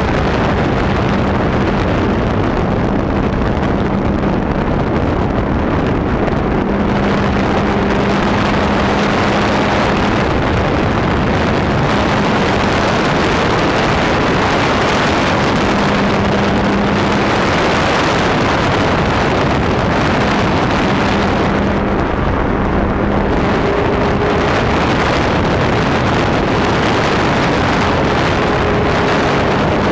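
Thunder Tiger RC airplane in flight, recorded on board: heavy wind rush over the camera, with the plane's motor droning underneath, its low steady note coming and going.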